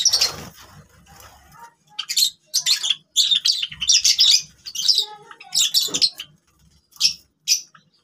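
Java sparrows giving short, high chirps in quick clusters, about a dozen bursts over several seconds.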